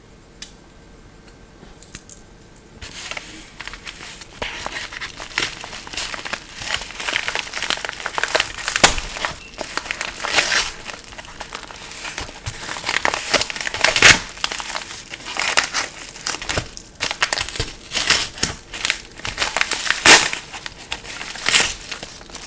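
Packaging of a new iPod case being opened by hand: continuous crinkling and crackling with sharp, louder crunches, starting about three seconds in.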